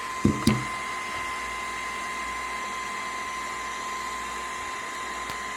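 A 3D printer's fan running with a steady whir and a steady high whine. Two soft knocks come in the first half second as the magnetic build plate and ring are handled.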